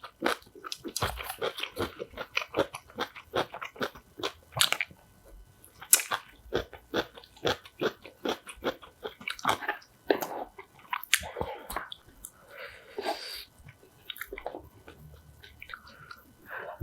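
Close-miked eating: repeated crisp crunches and chewing of kimchi.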